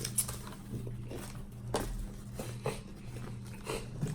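Close-miked chewing of crunchy food, with a few irregular crisp crunches and mouth clicks over a steady low hum.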